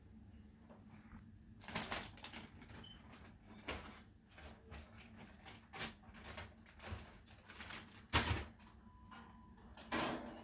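Scattered knocks, rattles and rustles of a birdcage being cleaned out and wiped, about a dozen short sounds, the loudest a sharp knock about eight seconds in.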